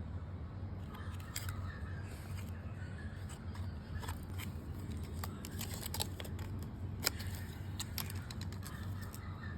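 Irregular sharp clicks and crinkles from handling a packet of effervescent tablets, over a steady low hum.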